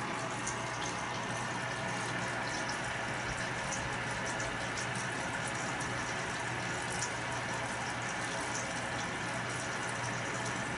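Water bubbling steadily with small scattered pops, over a low steady hum.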